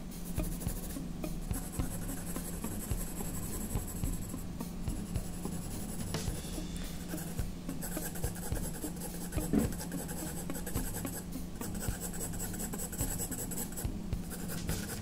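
Graphite pencil scratching across drawing paper in quick, irregular shading strokes, over a faint steady low hum.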